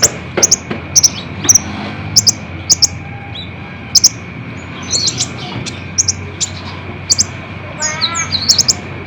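Sunbird song (the kolibri ninja of Indonesian bird-keepers): sharp, high chirps repeated in quick succession, broken by fast twittering runs. A short series of lower, falling notes comes about eight seconds in.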